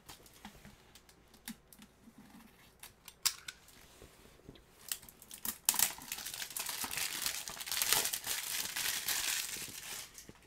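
Clear plastic shrink-wrap being torn and peeled off a Blu-ray case: a few scattered clicks and taps at first, then from about six seconds in a sustained crinkling and tearing of the cellophane that eases off near the end.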